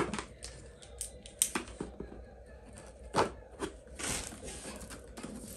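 Scissors snipping and scraping at the packaging of a small cardboard box: a handful of sharp, separate clicks, then a short rustle of the packaging about four seconds in.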